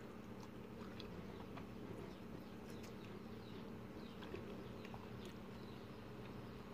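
A faint, steady low hum with scattered faint clicks.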